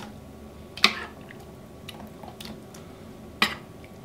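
A metal ladle clinking sharply against a stainless steel pot twice, about two and a half seconds apart, with fainter knocks and the soft sound of thick lentil soup being scooped into a plastic tub.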